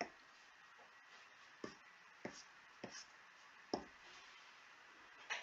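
Near silence broken by about six faint, sharp clicks spaced unevenly, from a pen colour being picked on screen in a drawing app.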